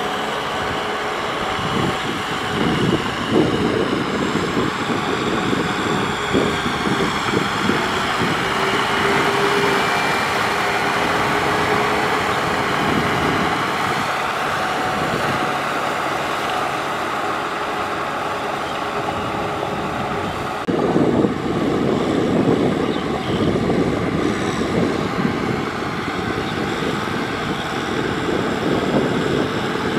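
Kubota M6040SU tractor's diesel engine running steadily under load as its rear rotary tiller churns wet paddy mud, growing louder for a stretch about two-thirds of the way through.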